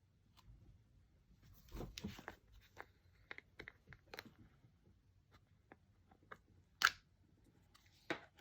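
Soft clicks and crackles of scented slime, with Fimo clay slices on it, being handled and poked by hand, with two sharper clicks near the end.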